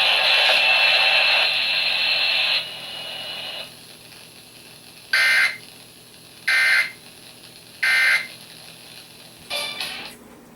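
EAS end-of-message signal: three short, screechy digital data bursts about a second and a half apart, the SAME "NNNN" tones that close a broadcast emergency alert test. Before them a loud hiss-like noise cuts off after about two and a half seconds, and a shorter, rougher burst comes near the end.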